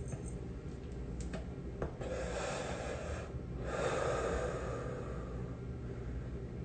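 A person breathing close to a phone's microphone: two long, noisy breaths, about two and four seconds in.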